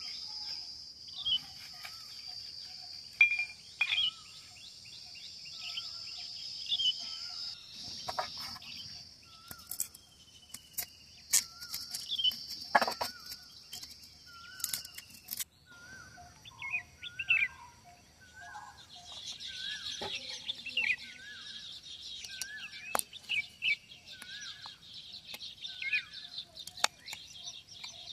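Outdoor countryside ambience: birds calling in short chirps repeated every second or so, over a steady high-pitched insect drone, with scattered small sharp clicks.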